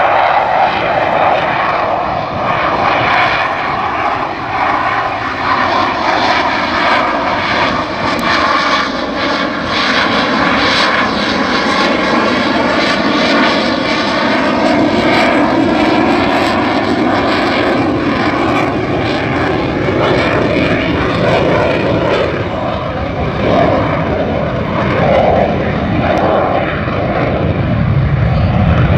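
F/A-18 Hornet-type fighter jet's twin engines making a loud, steady rush as the jet flies a display pass overhead, with a slowly sweeping, phasing tone as it moves across the sky.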